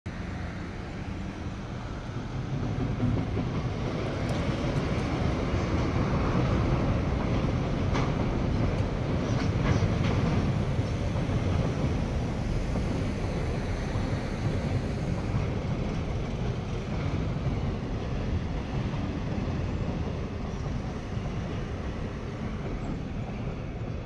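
Freight train, an EF210 electric locomotive hauling Koki container flatcars, running past on the line with a steady low rumble. The rumble builds a few seconds in and eases slowly through the second half.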